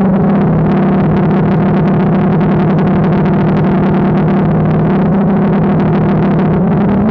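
DJI Phantom quadcopter's electric motors and propellers humming steadily in flight, heard from a camera mounted on the drone, with a fluttering rush of air.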